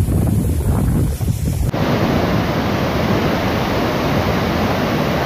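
The floodwaters of the Kaveri river rushing over rocky falls. For the first couple of seconds, wind buffets the microphone over a low rumble. Then, after a sudden cut, comes a steady full rush of water pouring close by.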